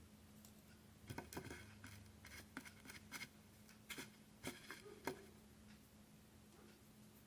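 Faint, scattered light clicks and taps of hands working with a hot glue gun, ribbon and a foam wreath, several in the first five seconds, with a faint steady hum underneath.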